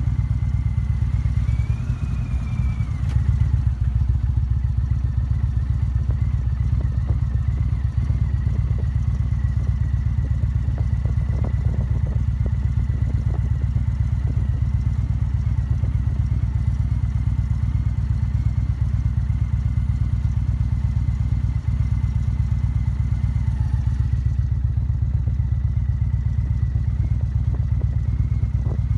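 Motorcycle engine running steadily as the bike is ridden along, heard from the rider's seat: a steady low engine sound with no break.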